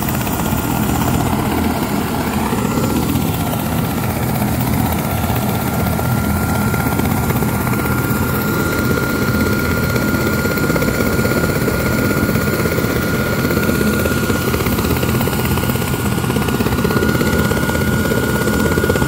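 Turbine helicopter running on the ground with its main rotor turning: a steady rush of rotor noise with a thin high turbine whine held throughout.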